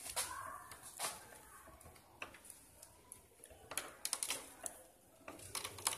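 Irregular light clicks and knocks, about eight of them, spaced unevenly, from a mechanical rack-and-pinion steering gear being worked by hand as its rack slides in the housing.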